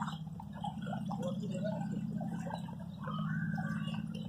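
Footsteps splashing through shallow street floodwater, a scatter of small irregular splashes, over a steady low hum.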